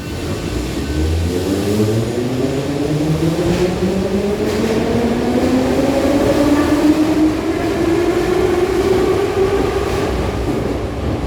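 New York City subway train accelerating: its traction motors give a layered whine that rises steadily in pitch, over the rumble of the cars.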